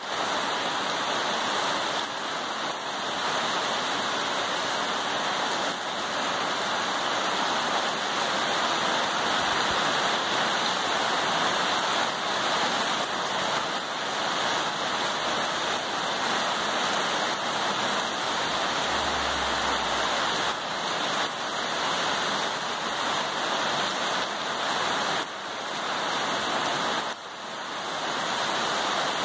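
Rain falling in gusty wind, a steady dense hiss that dips briefly near the end.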